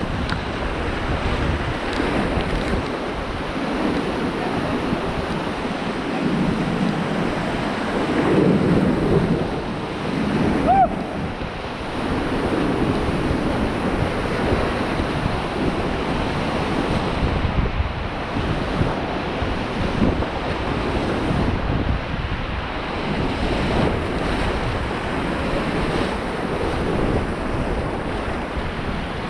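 Rushing whitewater of the Beas river around a raft, a steady loud rush, with wind buffeting the microphone.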